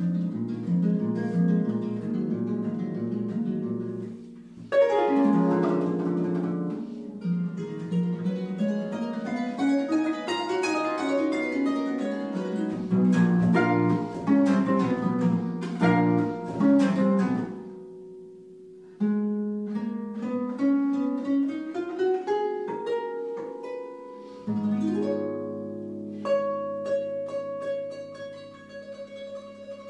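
Solo concert pedal harp playing classical music. It opens with repeated low plucked notes, then a loud entry of sweeping arpeggio runs that rise and fall, and after a thin held passage near the middle, a rising line leads to ringing chords near the end.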